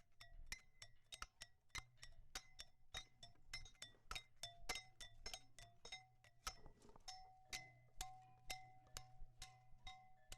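A quiet, steady series of sharp taps or clicks, about three a second and slightly uneven, each with a brief ringing tone, over a low steady hum.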